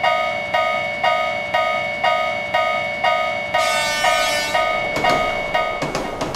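Japanese railway crossing alarm ringing its 'kan kan' bell about twice a second, each strike ringing out, over a steady high tone. A short hiss comes in about four seconds in, and near the end the ringing gives way to scattered clicks.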